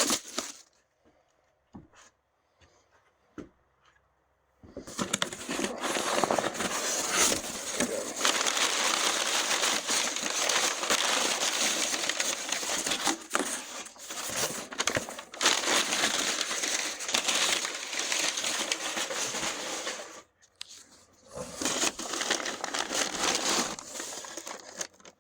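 Crinkling and rustling of packaging as firework cakes are handled and shifted around. A few light knocks come first, then a long stretch of steady crinkling about four and a half seconds in, a short break, and more crinkling near the end.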